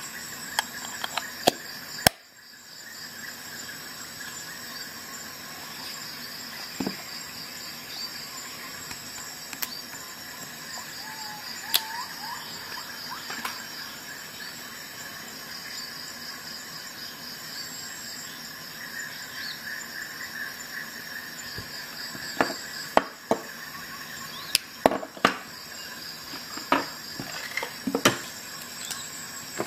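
Sharp plastic clicks and taps from handling a handheld sound level meter: a loud snap about two seconds in as its battery compartment is closed, and a run of clicks near the end as its buttons are pressed. Under them runs a steady, high-pitched background chirring.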